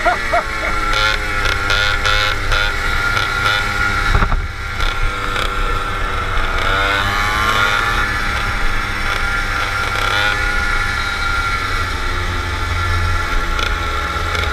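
Go-kart engines running steadily at part throttle as several karts cruise slowly together, the engine note falling and rising again about seven seconds in. A few short knocks sound in the first few seconds.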